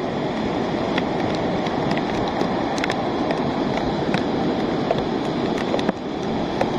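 Steady rushing of a rain-triggered lahar, a muddy flood of volcanic sand and debris, flowing down the river channel, with rain falling and many sharp taps of raindrops striking close by.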